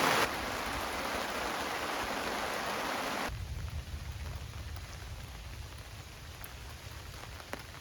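Heavy rain pouring down, then falling off to a lighter, fading patter about three seconds in, with a few drips near the end.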